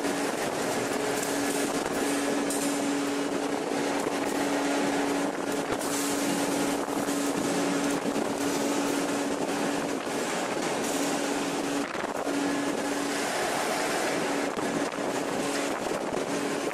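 Hydraulic hot forging press running while it works a glowing billet: a steady machinery drone with a constant hum that drops out briefly a few times.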